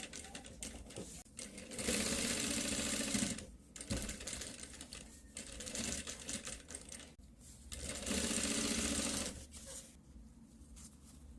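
Sewing machine stitching in two runs of about a second and a half each, one near the start and one about two-thirds through, with quieter clicks between.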